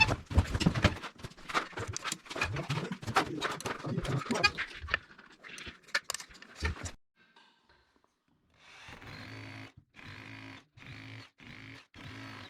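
Rapid clattering and knocking from hand work on the fitting for about seven seconds. Then, after a brief pause, a power tool's motor runs in about five short bursts, each at a steady pitch.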